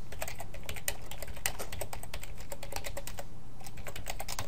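Typing on a computer keyboard: a quick, uneven run of keystroke clicks with a short break a little past three seconds in.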